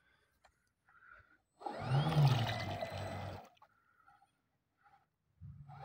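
RC carp bait boat's motors spinning up, with a rising whine and the propellers churning the water, for about two seconds from a second and a half in. The same run-up starts again near the end.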